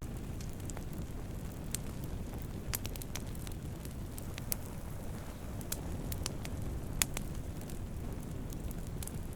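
Campfire burning wood: a steady low rumble of flames with irregular sharp crackles and pops, the loudest pop about seven seconds in.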